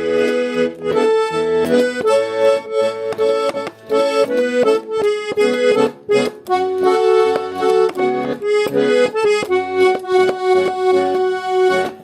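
Russian garmon (button accordion) playing a song melody over chords and bass, the notes changing in a steady rhythm. The music stops at the very end and the last chord fades away.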